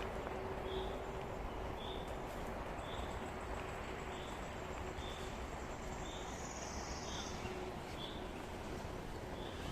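A bird repeating a short high call about once a second, over a steady outdoor background hum and noise.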